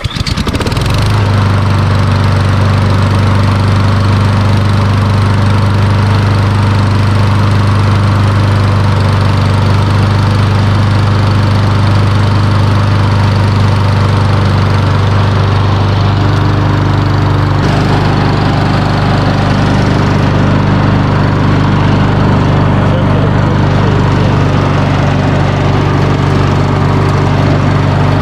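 Honda HRX217VKA lawn mower's GCV200 single-cylinder engine catching on the pull-start at its first start, then running steadily. Its tone shifts slightly about two-thirds of the way through.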